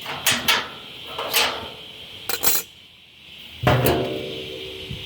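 Expanded-metal charcoal basket and its pizza-pan ash tray clanking as they are handled: a handful of metal knocks and rattles, the loudest near the end, ringing briefly.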